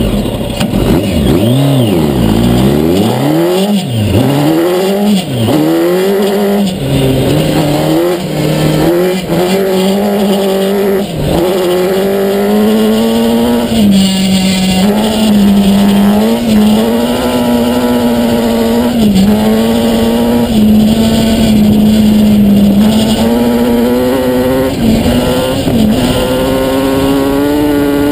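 Kawasaki ZX-10R inline-four motorcycle engine in a sand-rail buggy accelerating hard through the gears: the note sweeps up, falls back at each upshift and sweeps up again several times in the first few seconds. It then runs high and fairly steady at speed with brief dips, and climbs again near the end.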